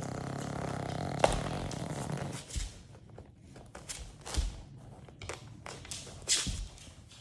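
Dog snoring: one long, low snore for about the first two and a half seconds, then a quieter pause broken by a few short, soft sounds.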